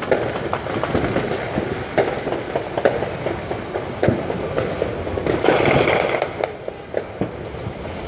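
New Year's fireworks and firecrackers going off, a dense run of overlapping pops and bangs, with a louder stretch of crackling about five and a half seconds in.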